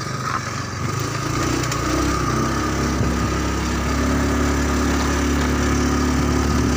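Motorbike engine running steadily while riding along a dirt track, growing louder about one to two seconds in.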